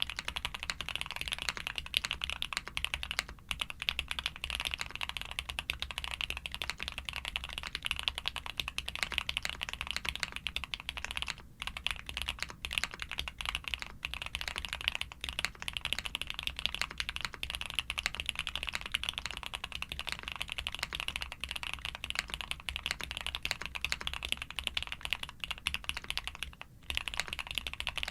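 Fast, continuous typing on a custom Suit80 mechanical keyboard built with frankenswitches (Cherry top housings on SP-Star white switches), a POM plate, full foam and DMK Astronaut keycaps. The keystrokes come densely, broken by a few short pauses.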